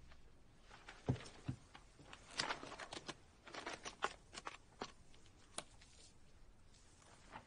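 Quiet handling of a paper book: two soft thumps about a second in, then rustling and flicking as its pages are leafed through, with scattered light clicks.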